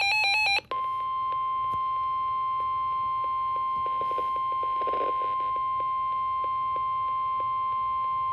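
Emergency Alert System attention signal: a pulsing electronic beep pattern cuts off about half a second in, then a single steady tone of about 1050 Hz starts and holds. This is the National Weather Service warning alarm tone, which precedes a broadcast severe thunderstorm warning.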